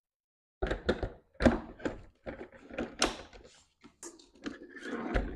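Hard plastic knocks, thuds and clicks as a Ninja blender's pitcher is handled and set down onto its motor base, in an irregular run that starts about half a second in.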